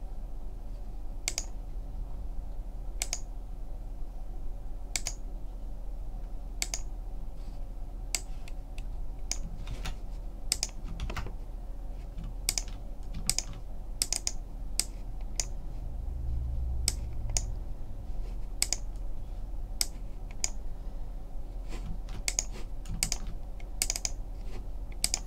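Clicks of a computer mouse and keyboard: single clicks every second or two, then quicker runs of clicks midway and near the end, over a low steady hum.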